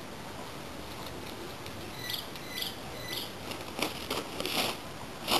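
A bird chirps three times, about half a second apart, from about two seconds in. Near the end come short rustling bursts as the tissue-paper balloon is handled.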